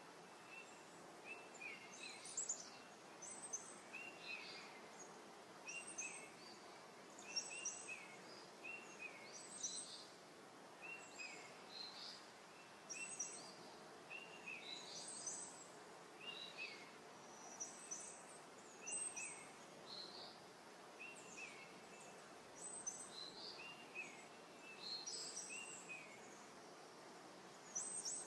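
Birds chirping, with short high notes repeating about once a second over a faint steady hiss.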